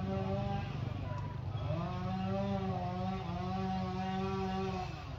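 A small motor engine running, its pitch dipping about a second in, rising and holding steady, then falling away near the end.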